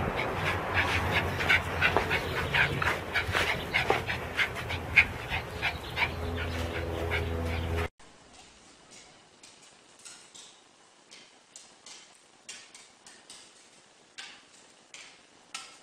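A small dog gives rapid short high-pitched whimpers and yips, about four or five a second, over a low rumble. After a sudden cut about halfway through, a dog's claws click faintly on a tile floor.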